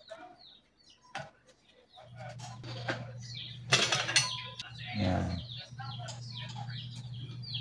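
Birds chirping repeatedly in the background, over a few light clicks of metal stove valve parts being handled. A steady low hum starts about two seconds in, and a short burst of noise comes near the middle.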